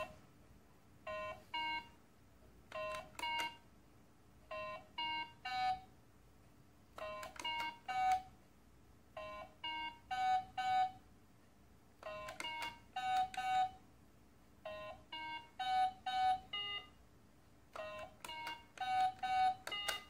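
Handheld Simon-style electronic memory-game toy playing short beeps at a few different pitches, in groups separated by pauses. The sequences grow from two notes to about five as each round is played and repeated on the coloured buttons.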